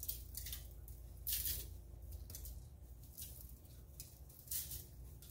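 Hand-held shaker of salt-and-pepper rub shaken over raw chicken in several short rattling bursts about a second apart, the grains pattering down.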